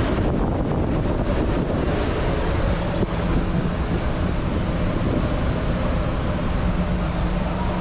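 Steady city street traffic noise with some wind on the microphone; a low, steady engine hum comes in about three seconds in.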